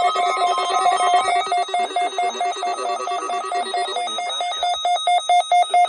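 NOAA Weather Radio alarm going off for the required weekly test: loud electronic alert beeping, pulsing about five times a second over a steadier tone that drops out about four seconds in.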